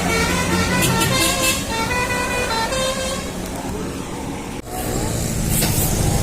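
An Indonesian bus's 'telolet' basuri musical horn playing a quick tune of short stepped notes that fades out about three seconds in. A sharp click follows near the middle, then a low rumble.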